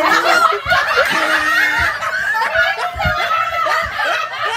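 Several people laughing together in overlapping peals, with a few short low thumps underneath.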